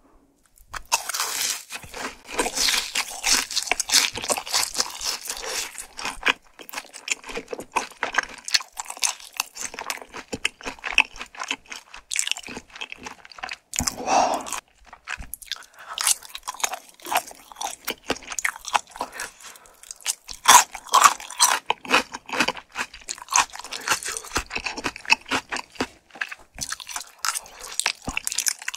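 Close-miked crunchy chewing of a bite of Bburinkle seasoned boneless fried chicken, a dense run of crisp crackles from the fried coating with a couple of short pauses.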